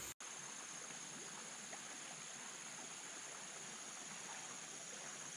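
Steady outdoor background hiss with a constant high-pitched tone running through it, after the sound drops out for an instant at the very start.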